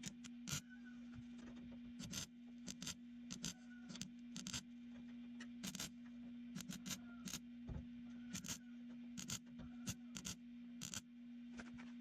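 Irregular light taps and clicks, several a second, from shaping a sheet-steel cab-corner patch panel, over a steady low hum.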